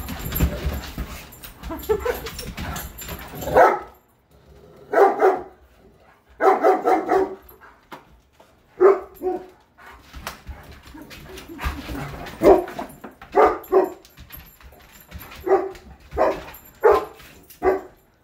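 Dogs barking repeatedly in play: short barks, singly and in quick clusters of two or three, every second or two. For the first few seconds there is a low rumble under them.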